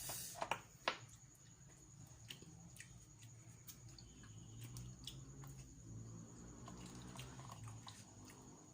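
Eating boiled seafood by hand: scattered sharp clicks and cracks of shell, with small wet squishing and dripping sounds.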